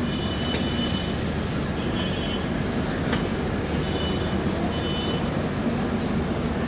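LHB passenger coaches rolling slowly past, the wheels giving a steady rumble. Short high-pitched squeals from the running gear come four times, with an occasional click over the rail joints.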